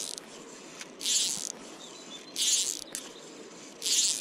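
Fly line being stripped in by hand, rasping through the rod guides in short zips, four in a row about one every second and a half: line being retrieved while playing a hooked trout.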